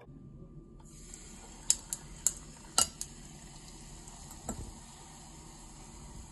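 Cola poured from a can over ice cubes in a glass, fizzing with a steady high hiss that starts just under a second in. A few sharp clicks come between about one and three seconds in, and a single knock at about four and a half seconds.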